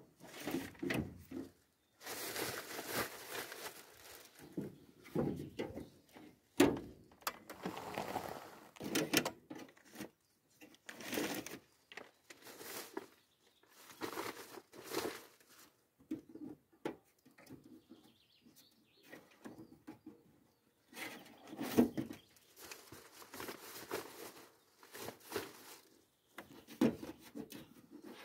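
Irregular rustling and small knocks and clicks of hands taking mail out of a wall-mounted mailbox: paper rustling, with a sharper click now and then.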